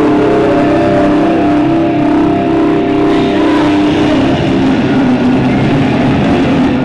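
Loud wrestling entrance music with a revving car-engine sound in it. It fades out near the end.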